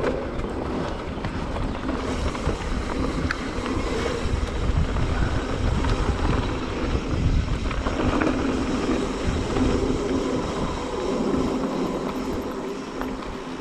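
Mountain bike ridden at speed: wind rushing over the camera microphone over the rumble of the tyres rolling on the trail.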